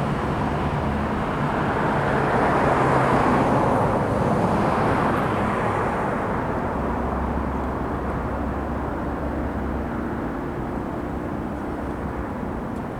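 Drone of a passing vehicle, swelling over the first few seconds and then slowly fading away.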